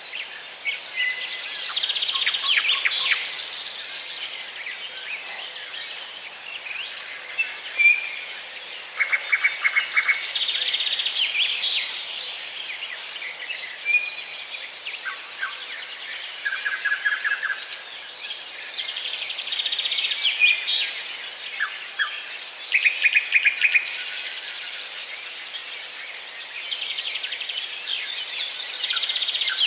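Small songbirds singing: song bouts of rapid trills, high notes and short whistles, repeating every several seconds over a steady outdoor hiss.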